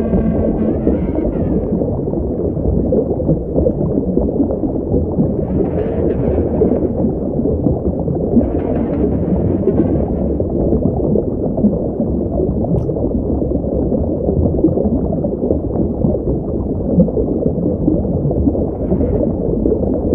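Made-up Liopleurodon sound effect: a steady, loud, bubbling underwater-style rumble, with four short whale-like calls rising out of it, at the start, about six and nine seconds in, and near the end.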